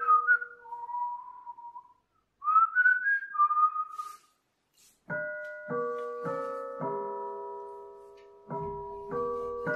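A man whistling idly through pursed lips, two short wavering phrases of a few notes each. About halfway through, piano music comes in with chords struck roughly every half second.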